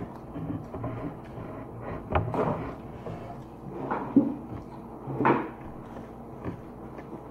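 Eating sounds at a meal of chicken wings eaten with the fingers: a handful of short, separate smacks and light knocks, with lips smacking on fingers.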